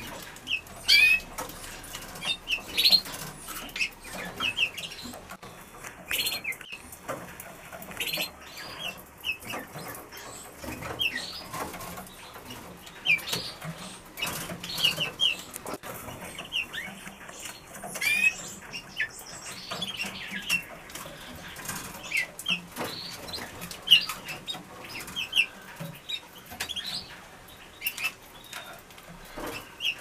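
Red mosaic canary hen building her nest: wings fluttering, and the nesting grass rustling and crackling as she works it into the plastic nest pan, with frequent short, high bird chirps scattered throughout.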